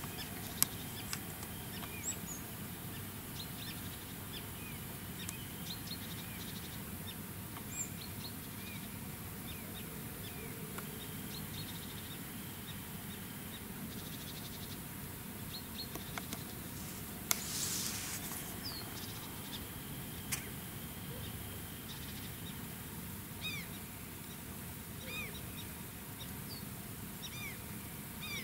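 Small birds chirping in short, scattered calls over a steady outdoor background, with a few light clicks and a short burst of noise about seventeen seconds in.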